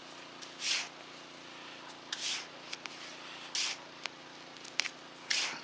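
Small hand trowel digging in sand: four scoops about every one and a half seconds, each a short gritty hiss of sand, with a few light clicks between them.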